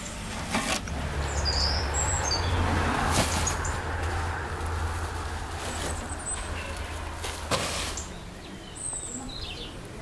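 A low engine rumble that swells and then fades over several seconds, like a motor vehicle passing. Birds chirp over it, and there are a few sharp knocks.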